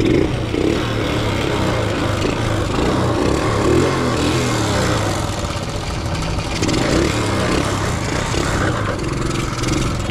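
Honda Super Cub 90cc single-cylinder four-stroke engine running steadily just after being started, the sound rising right at the start.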